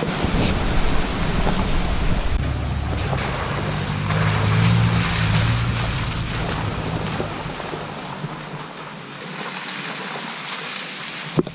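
Steady rushing of river water with wind buffeting the microphone in gusts; a sharp click near the end.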